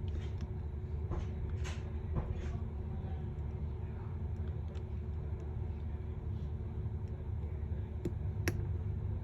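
A few faint clicks and light taps from small parts and tools being handled while a phone screen is fitted, over a steady low rumble.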